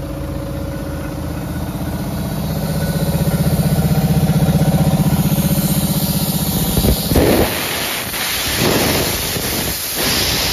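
Ford 3600 tractor's three-cylinder diesel engine running, driving a sandblasting machine's air compressor, growing louder a couple of seconds in. About seven seconds in it gives way to a loud hiss of compressed air rushing out through the hoses.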